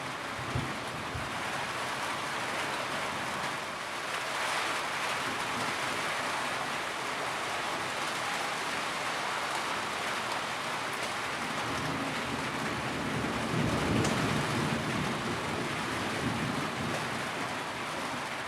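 Steady rain falling, with a low roll of thunder rumbling through about two-thirds of the way in.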